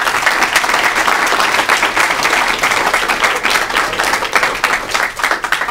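Audience applauding at the end of a talk: many people clapping at once, dense and steady, thinning out near the end.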